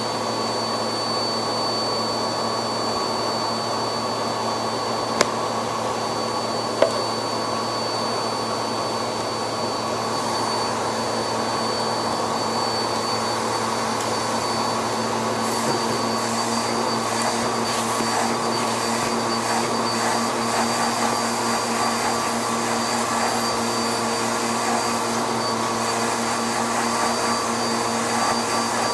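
A vacuum cleaner running steadily, its motor giving a constant high whine over the rush of air. There are two sharp clicks, about five and about seven seconds in.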